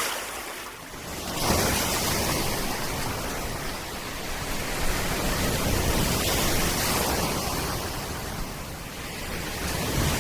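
Steady rushing noise of sea surf and wind on a beach, quieter for the first second or so, then rising and holding with a low rumble.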